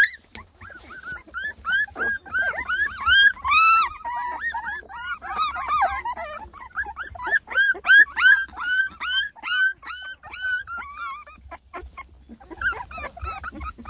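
A litter of three-and-a-half-week-old beagle puppies whining and whimpering together, a run of many short, high cries that rise and fall, overlapping one another, with a brief lull near the end. Fussy, complaining puppy cries.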